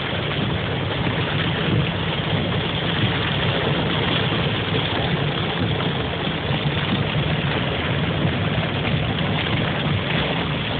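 Heavy rain pouring down, a steady dense rush that holds at the same level throughout.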